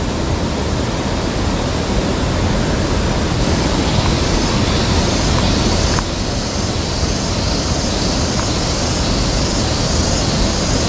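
Steady rush of water flowing in a small irrigation ditch, an even, unbroken noise.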